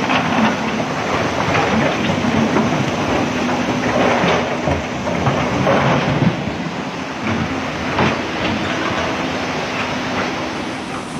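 Brown floodwater rushing over a boulder-strewn riverbed: a loud, steady rushing noise with scattered knocks, with a faint steady engine hum from excavators beneath it.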